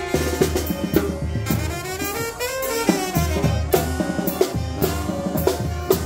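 Oaxacan wind band playing: brass and clarinets over a bass drum and crash cymbal, with the drum-and-cymbal strikes falling about twice a second.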